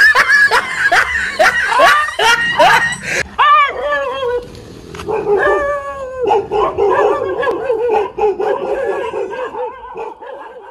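Dog frightened by a stuffed toy tiger, yelping in a quick run of sharp yips for the first three seconds or so, then letting out a long wavering howling whine.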